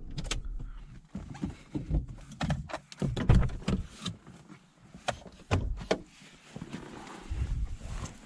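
An irregular series of sharp clicks and knocks with a few duller thumps, from hands working at a car's headlight to take out the installed low-beam halogen bulbs.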